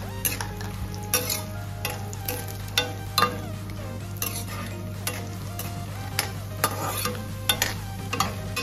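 Makhana (fox nuts) frying in ghee in a steel kadhai, stirred with a steel spoon: repeated irregular scrapes and clinks of the spoon against the pan over a sizzle.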